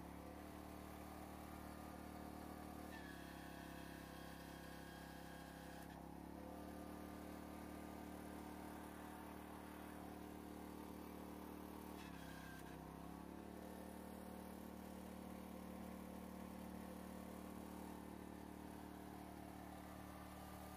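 Briggs & Stratton 21 hp Vanguard V-twin engine running steadily, driving the hydraulic pump of a vertical log splitter as the wedge moves down the beam. Its pitch steps down and back up a few times, with the deepest dip about twelve seconds in, as the hydraulics take up load.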